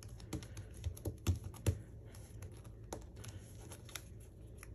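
Scattered light clicks and taps of fingers and fingernails handling a small cardstock piece on a craft mat, the sharpest two a little over a second in, fewer and fainter afterwards.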